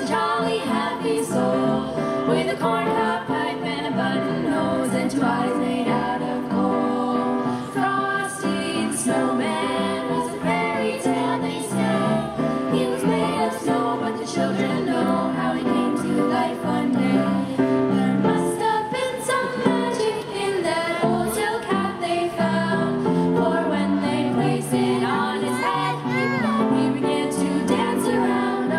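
Youth choir of young female voices singing a song together, with instrumental accompaniment.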